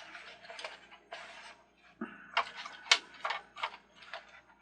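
Plastic parts of a toy carousel's top section clicking and scraping as they are twisted and pried at. It is a string of irregular clicks and rubs, with two sharper snaps about two and a half and three seconds in.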